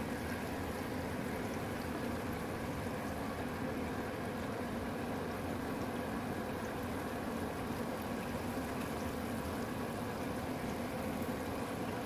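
Beef pieces frying in a pan of bubbling oil: a steady sizzle.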